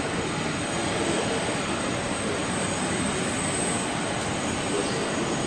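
Jet engines of a taxiing Airbus A380 heard from a distance: a steady, even rush with a thin high whine.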